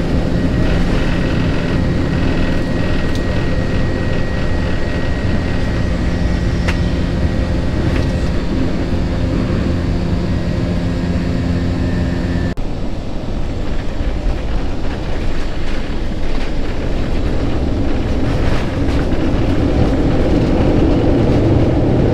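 Jet airliner engines heard from inside the cabin at takeoff power during the takeoff and climb-out, a loud steady noise with a held whine. About twelve seconds in it cuts abruptly to the cabin noise of the airliner on the runway after landing, a rumble that grows louder toward the end.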